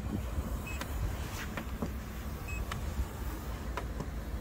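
Electronic paint thickness gauge giving two short high beeps, about a second in and again about halfway, each one signalling a finished reading as its probe is set on the car's painted door panel. Faint clicks of the probe touching the panel are heard over a low background rumble.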